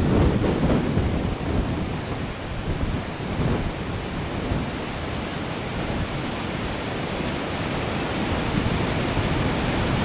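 River Ribble in flood at Langcliffe weir, swollen after days of rain: a loud, steady rushing of turbulent floodwater, a little louder in the first second and a half.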